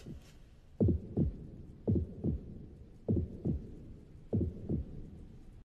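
Heartbeat sound effect: four low lub-dub double thumps, about a second apart, for a torn-out heart still beating in a hand.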